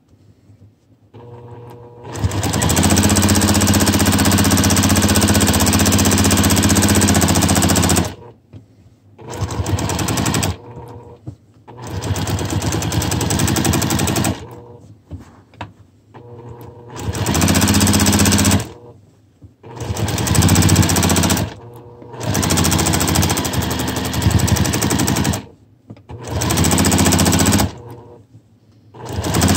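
Juki TL2200QVP Mini sewing machine stitching fast in free-motion quilting, running in eight spurts that start and stop. The first spurt lasts about six seconds and the rest one to three seconds each, with short pauses between them.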